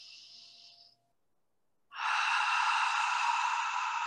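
A person breathing audibly during a yoga hold: a soft breath for about the first second, then from about two seconds in a longer, louder breath out through the open mouth that stops abruptly.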